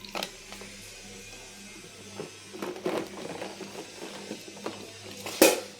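Soft background music with a few clacks and knocks of plastic toy vehicles being handled, one sharp knock near the end the loudest.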